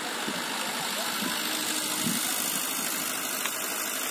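Komatsu PC78US-11 compact hydraulic excavator's diesel engine running steadily while the machine works.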